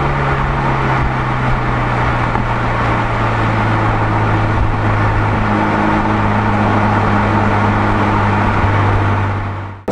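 BMW F30 320i's 2.0-litre turbocharged four-cylinder pulling steadily in fourth gear at around 3,000 rpm, heard through an Aura aftermarket end muffler as a steady exhaust drone. The note dips slightly about a second in, then holds, and cuts off abruptly near the end.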